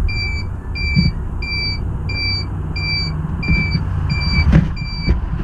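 An electronic beeper sounding a short high beep over and over, about one and a half beeps a second, over a steady low road and wind rumble.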